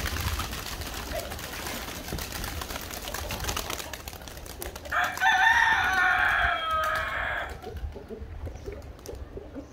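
A flock of pigeons flapping their wings as they take off, then a rooster crowing once, about five seconds in, for about two and a half seconds.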